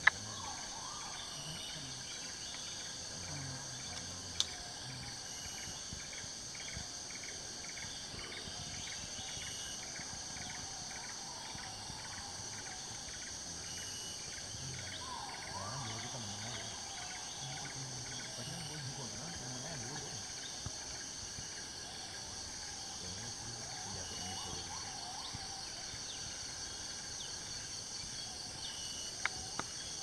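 Tropical rainforest insect chorus: a steady, high-pitched, even buzzing throughout. A few faint rising calls come about a second in and about fifteen seconds in, and there are a couple of sharp clicks near the start.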